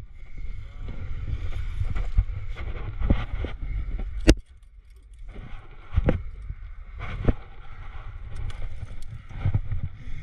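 Low, uneven rumbling noise on a body-mounted camera as a climber jams up a sandstone crack, broken by scattered sharp knocks and clicks; the loudest, a sharp click about four seconds in, is followed by a brief lull.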